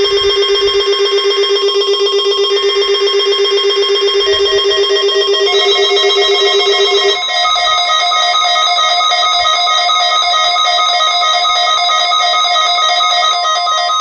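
Several NOAA weather alert radios sounding their alarms together for a Required Weekly Test: overlapping fast-pulsing electronic beeps at different pitches. The lowest, warbling one stops about seven seconds in while the higher beeps continue.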